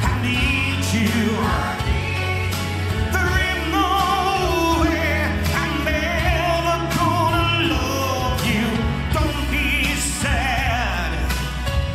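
Rock song performed live: a male lead singer holding long notes with vibrato into a microphone over a full band with steady bass and regular drum hits.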